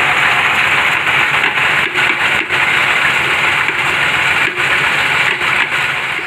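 Heavy rain falling steadily, a dense, even downpour hiss.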